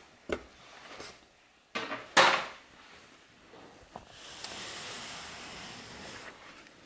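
Plastic under-dash trim panel being handled, with a few knocks and a louder plastic clatter about two seconds in. A click follows, then a soft rustling hiss for about two seconds.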